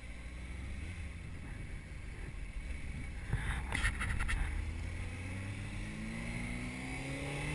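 Sport motorcycle engine running low and steady, then revving up with rising pitch in the last couple of seconds as the bike pulls away. A few short clicks come about halfway through.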